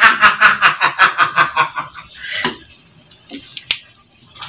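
A man laughing heartily in a fast run of repeated bursts, about six a second, for roughly two seconds, then trailing off into quiet with a few light knocks.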